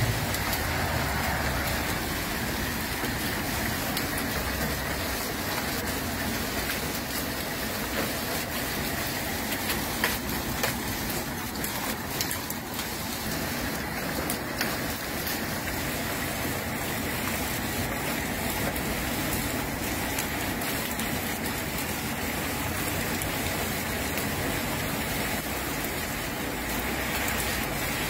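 Hailstorm downpour: a steady hiss of heavy rain and hail falling on garden plants and paving, with a few sharper ticks scattered through the middle.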